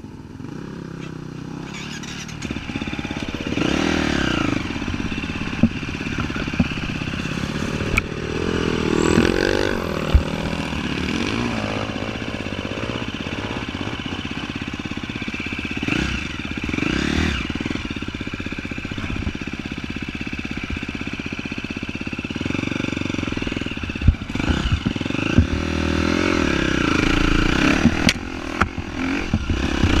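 Off-road vehicle engine running over rough trail, revving up and down repeatedly, with occasional sharp knocks and clatter from the bumpy ground.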